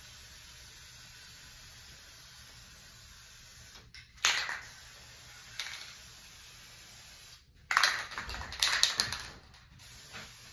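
Aerosol spray can of Helmsman Spar Urethane clear coat spraying in bursts: a brief spray about four seconds in, a shorter one soon after, and a longer, uneven spray of a second or two near the end, over a steady background hiss.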